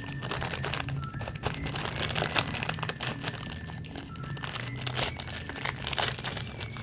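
Snack packaging crinkling as it is handled and unwrapped, with many quick, irregular crackles.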